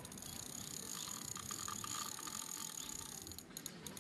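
Fishing reel ticking in a quick run of small clicks over a steady high hiss, with a hooked arapaima on the line.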